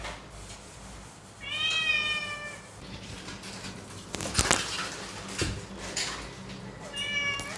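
Domestic cat meowing twice: a long meow about a second and a half in, and a shorter one near the end. Between them come a couple of sharp knocks and fur rubbing close to the microphone as the cat brushes against the phone and is handled.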